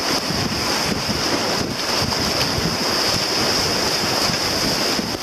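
Whitewater rapids rushing steadily around a paddled boat, a constant hiss of broken water with wind buffeting the microphone.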